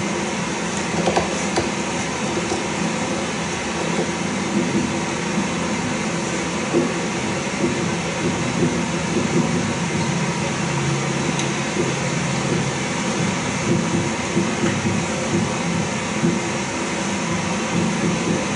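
Steady rumbling background noise with a low hum and no speech, heard through a TV speaker that is being re-recorded by a camcorder.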